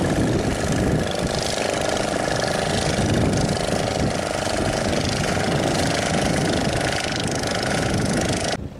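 An engine running steadily at idle, a constant hum with a steady tone over it, which cuts off abruptly near the end.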